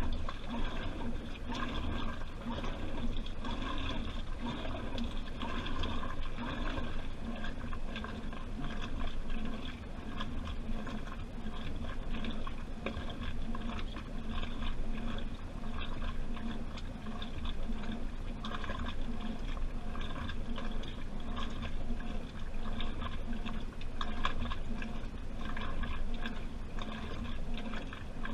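Washing machine running a wash cycle, heard from inside the drum: water sloshing, trickling and gurgling as the laundry tumbles, going on steadily.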